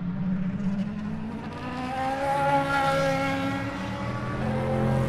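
Race car engines running on the circuit. One engine note grows to its loudest about two and a half seconds in, its pitch easing down. A lower-pitched engine builds near the end as another car approaches.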